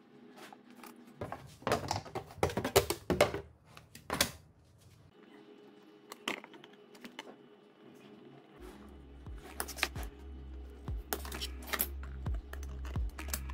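Scattered light clicks, taps and scrapes from a thin printed composite panel and a marker pen being handled and marked against a motor on a wooden board, with a busy run of clicks a couple of seconds in and more near the end.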